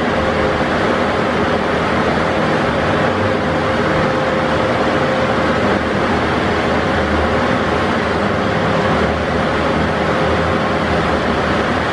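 Škoda 15Tr trolleybus running while being driven slowly, heard from the driver's cab: a steady mechanical drone with a constant whine above it.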